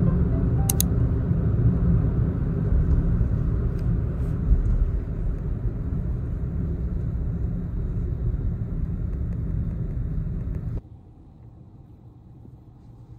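Low road and engine rumble inside a moving car's cabin. About eleven seconds in it drops suddenly to a much quieter hum.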